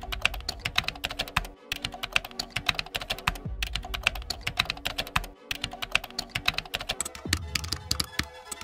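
Computer-keyboard typing sound effect: rapid keystroke clicks that pause briefly three times, over soft background music with low held notes.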